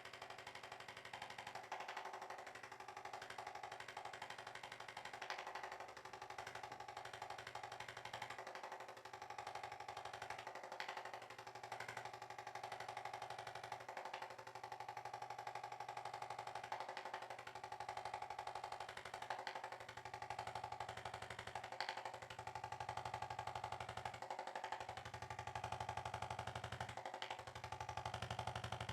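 Soft background music: sustained droning tones with a slow, even pulse about every two and a half seconds.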